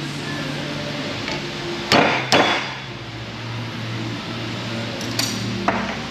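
Hammer striking a wrench fitted to the rod assembly of an excavator boom cylinder. Two sharp metallic blows about half a second apart, each with a brief ring, then two lighter knocks near the end.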